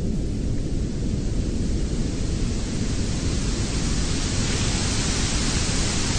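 Television static: a steady hiss of white noise over a low rumble, the hiss growing brighter about halfway through.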